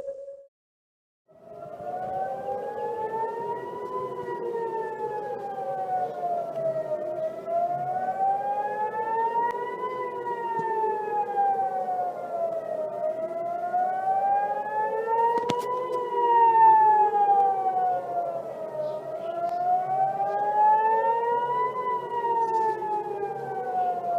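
Civil defense warning siren wailing in slow rise-and-fall cycles of about six seconds, several tones crossing as some rise while others fall. It starts after a brief silence about a second in.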